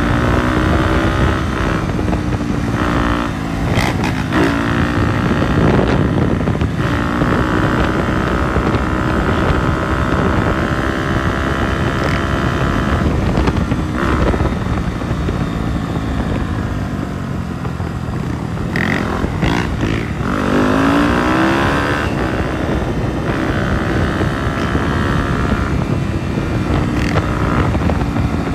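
Dirt bike engine revving hard on the move, its pitch climbing and dropping again and again, with a few brief dips in between.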